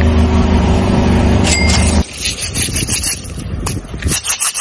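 Car engine idling close by, a steady low hum that cuts off abruptly about two seconds in. It is followed by short clicks and rattles as a small plastic bottle of sprinkles is handled and set down on asphalt.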